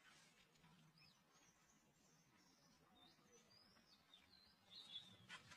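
Near silence with faint, high bird chirps and whistles running through, and a few soft taps or rustles near the end.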